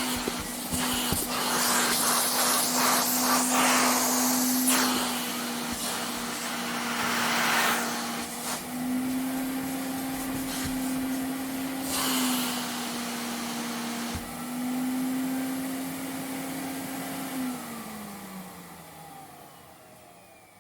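Vacuum cleaner running with a steady motor whine that shifts slightly in pitch and a suction hiss that swells and fades. About seventeen seconds in it is switched off, and the whine falls in pitch and fades as the motor spins down.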